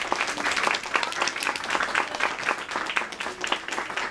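Audience applauding: many hands clapping steadily at the end of a performance.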